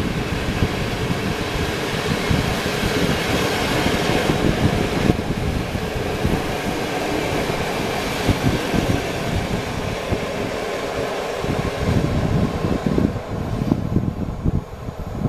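Passenger train coaches rolling past on the rails, a steady rolling noise that fades as the last coach draws away. Low gusts of wind buffet the microphone near the end.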